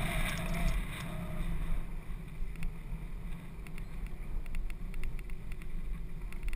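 Downhill mountain bike rolling over a dirt track: a low rumble of tyres and wind on the camera's microphone with scattered clicks and rattles. It grows quieter after about the first second.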